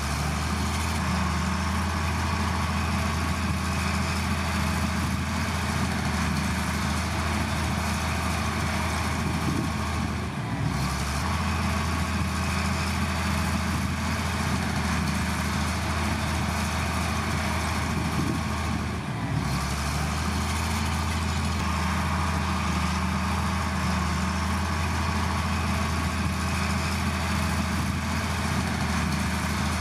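Heavy diesel engine of earthmoving machinery running steadily with a deep hum, with brief dips about ten seconds in and again just before twenty seconds.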